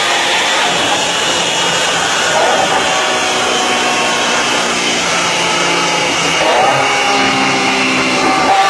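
Lamborghini Aventador LP700-4's 6.5-litre V12 running hard on a chassis dynamometer, a loud steady rushing mix of engine, spinning rollers and cooling fans. The engine note sinks in the middle and the revs climb again near the end.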